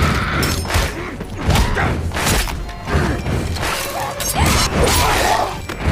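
Film fight sound effects, punches, thuds and crashes striking over and over on top of music.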